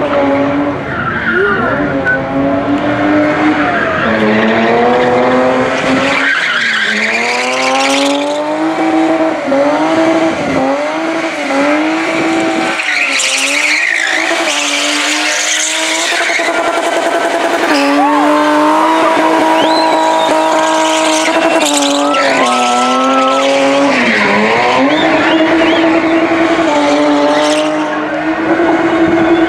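BMW E30 spinning donuts, its engine held at high revs with the pitch dipping and climbing back several times as the throttle is worked, while the spinning rear tyres squeal and skid on the tarmac.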